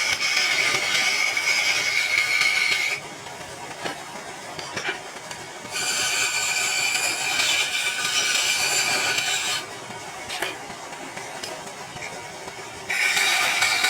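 A tool running in three bursts of a few seconds each, a hissing whine with quieter pauses between.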